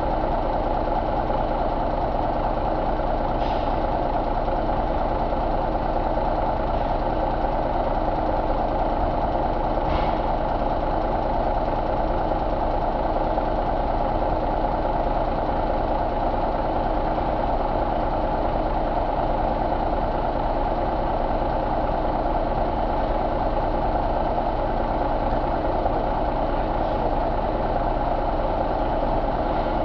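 Cummins inline-six truck diesel engine idling steadily, with two faint ticks over the even run.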